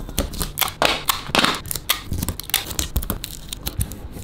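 Hands arranging a string of copper-wire fairy lights on a tabletop: a quick, uneven run of clicks and taps with short rustles in the first couple of seconds.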